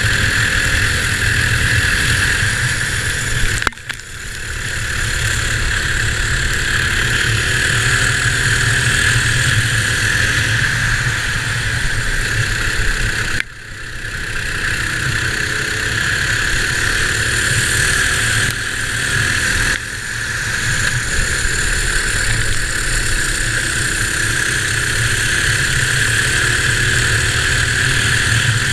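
Sealed Predator 212cc single-cylinder four-stroke kart engine running hard at racing speed, heard from onboard with wind on the microphone. The engine note drops sharply three times, about 4, 13 and 20 seconds in, and builds back up each time over a second or two.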